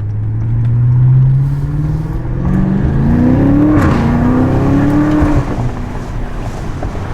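BMW F90 M5's twin-turbo V8, fitted with Eventuri intakes, accelerating hard. The engine note rises steadily, drops about four seconds in at an upshift, climbs again, then eases off about five and a half seconds in.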